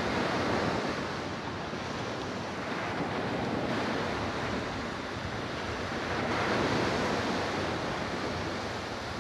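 Ocean surf washing on the shore with wind on the microphone, a steady rushing noise that swells and eases every few seconds.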